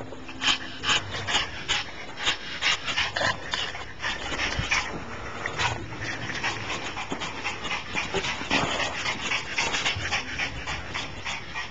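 A Pomeranian whimpering and fussing, among a quick, irregular run of short clicking sounds.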